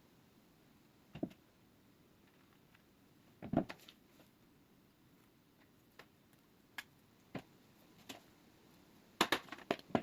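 Scattered light knocks and clinks of kitchen utensils against a bowl and baking form as batter and filling are spooned in, with a quick run of clicks near the end.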